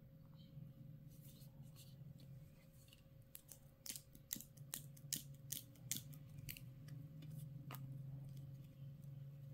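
Scissors snipping about ten times in quick, uneven succession, starting about three seconds in, over a low steady hum.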